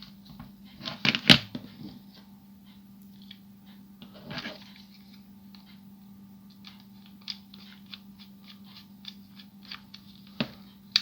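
Small plastic toy being handled: scattered light clicks, taps and rustling of hard plastic parts, with a louder clatter about a second in.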